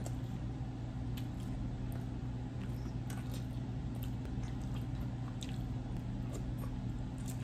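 Close-up eating sounds: chewing and biting seafood, with fingers picking through food in a foil pan. The sounds are small scattered clicks and soft squishes over a steady low hum.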